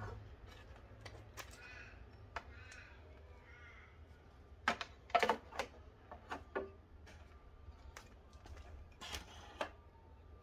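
Sharp plastic clicks and knocks as the side fairing panel and its plastic fasteners beside the dash of a Yamaha FJR1300 motorcycle are handled and worked loose by hand. The clicks are loudest in a quick cluster about five seconds in. A few harsh bird calls sound in the background between about two and four seconds in.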